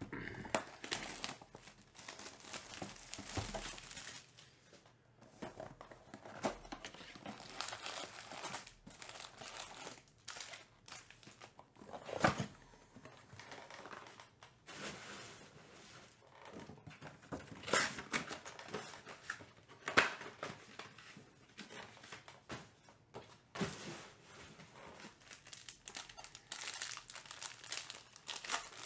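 Foil trading-card packs crinkling and tearing as they are handled and opened: a dense, irregular run of sharp crackles, with a couple of louder ones partway through.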